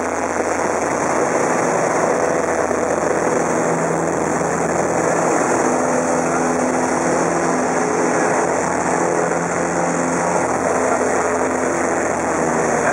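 Super Decathlon's four-cylinder Lycoming engine and propeller running steadily under power, with wind rush, heard from inside the cockpit. The engine note shifts slightly during an aerobatic manoeuvre.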